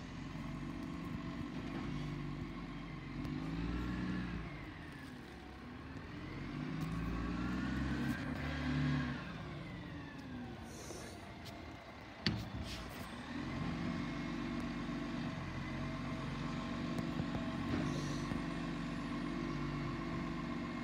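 A truck engine running, its pitch rising and falling twice in the first half, then holding steady. A single sharp click comes about twelve seconds in.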